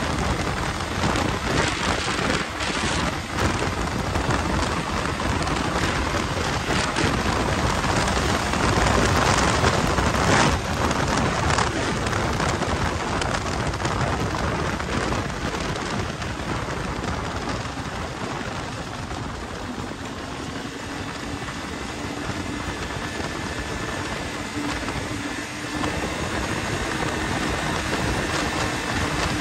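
Snowmobile running at speed over snow-covered ice: a steady rush of wind on the microphone over the engine and track noise, with a faint steady engine hum coming through in the second half.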